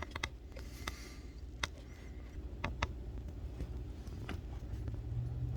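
Low steady outdoor rumble with scattered light clicks, and a vehicle engine's steady low hum coming in near the end.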